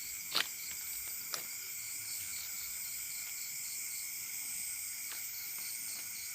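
Night chorus of crickets and other insects: steady shrill trilling in several high pitches, one of them pulsing regularly. Two short clicks sound about half a second and a second and a half in.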